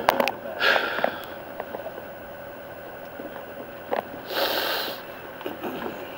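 Handling noise from a camcorder held against clothing: a few sharp clicks at the start, then two short breathy rushes of noise, one about half a second in and a longer one about four seconds in, like a sniff or cloth brushing the microphone.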